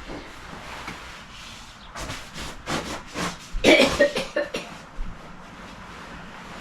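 Bed linen rustling in a series of short bursts as it is handled, with a louder short vocal sound, like a cough, a little past halfway through.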